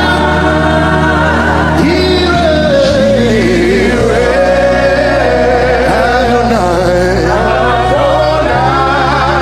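Live gospel worship music: a singer's wordless, gliding vocal line over held chords, with the bass note changing about three seconds in and again near the end.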